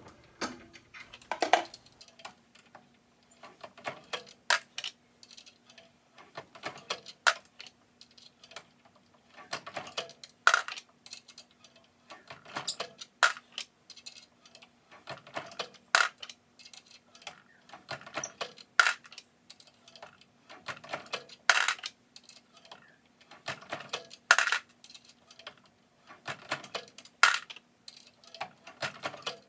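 Brass rifle cases being resized one after another on a reloading press: a cluster of metallic clicks and clinks about every three seconds as each 450 Bushmaster case is handled, run through the die and set down among the others. A faint steady hum sits underneath.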